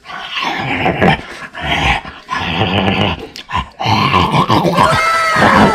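A man growling and snarling like an animal as he bites into food, in three rough bursts. Near the end, thin gliding whistle-like tones come in.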